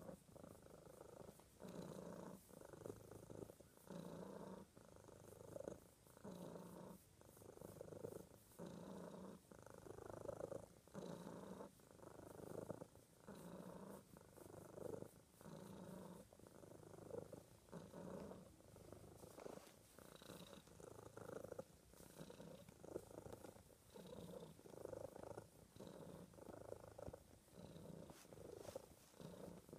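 Domestic cat purring steadily close up, the purr swelling and dipping with each breath about once a second.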